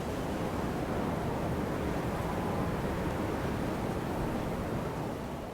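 Steady rushing wind with a low rumble.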